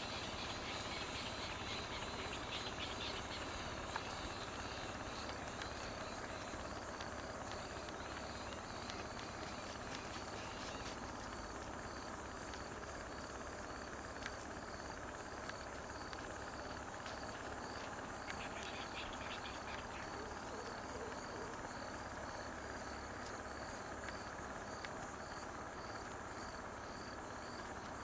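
Outdoor field ambience: a small insect chirping steadily, about two short high chirps a second, over a low steady rumble.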